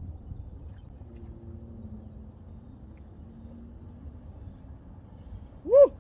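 Wind buffeting the microphone in a low, steady rumble. Near the end comes a single short, loud, high call that rises and falls in pitch.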